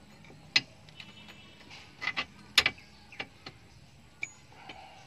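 Irregular sharp metallic clicks and knocks of hand tools working on a van's wheel hub assembly during a bearing and hub replacement, loudest a little over two and a half seconds in.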